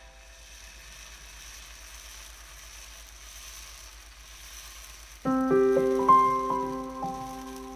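Methi dosa batter sizzling faintly on a hot griddle as it is poured and spread out with a ladle. About five seconds in, piano music starts and becomes the loudest sound.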